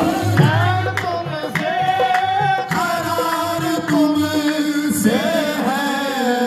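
A naat sung in qawwali style: a solo voice holds long, wavering melodic lines over tabla strokes.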